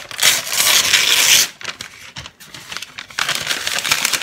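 Sheets of newspaper being crumpled by hand: a loud rustling burst in the first second and a half, then crinkling again from about three seconds in.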